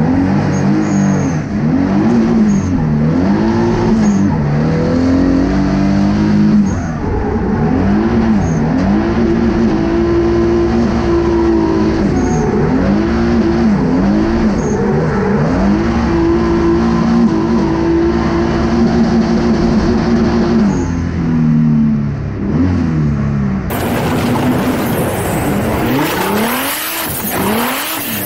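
Twin-turbo 3.8 V6 drift car engine revving up and down repeatedly, held at high revs for stretches of a few seconds, heard from inside the cabin. About 24 seconds in, the sound cuts to a brighter outside recording with engine, rushing wind and tyre noise.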